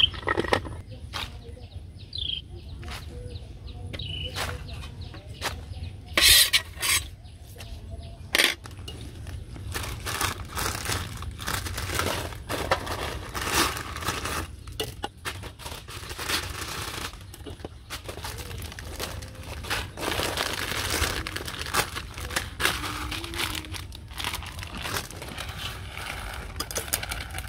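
Small clicks and rustles of food preparation: a knife cutting leafy greens, a plastic noodle packet crinkling and dry instant noodles being broken into a wok. Chickens cluck now and then in the background.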